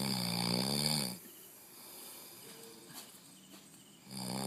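Loud snoring: two long, buzzing snores about four seconds apart, each lasting about a second with a low pitch that wavers, and quieter breathing between them.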